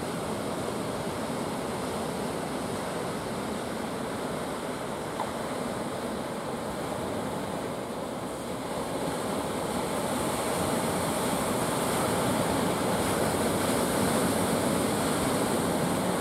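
Sea surf washing steadily onto the shore, growing somewhat louder about halfway through.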